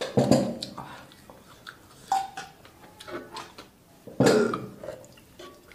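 Close-up eating sounds of a man chewing a mouthful of curry noodles, with two short throaty sounds, one at the start and one about four seconds in.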